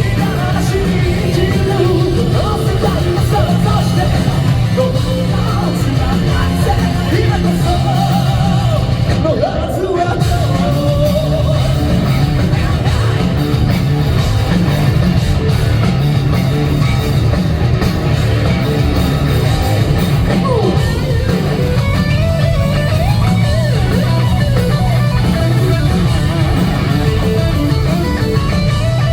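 Live J-rock band playing at full volume, with a male lead singer over electric guitar, bass and drums, heard from the audience at a loud concert.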